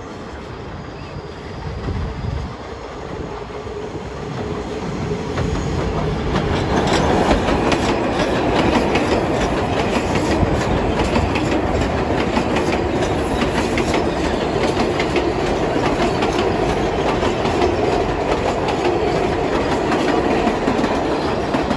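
R188 subway train on an elevated steel line approaching and running past close by, its wheels clattering over the rail joints. The rumble grows louder over the first several seconds and then holds steady as the cars go by.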